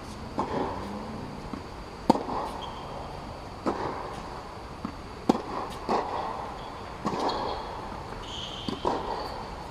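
Tennis rally: a ball struck back and forth with sharp racket hits and bounces about every second and a half, each with a hollow echo from the air-supported dome. A brief squeak near the end.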